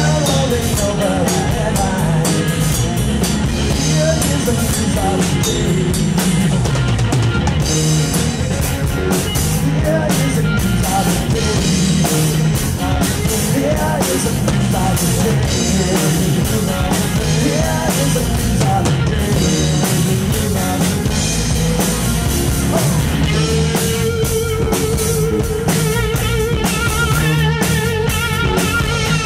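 Live rock band: male lead vocals over a Stratocaster-style electric guitar and a drum kit. About six seconds from the end the singing stops and the electric guitar holds one long note with vibrato, the start of a guitar solo.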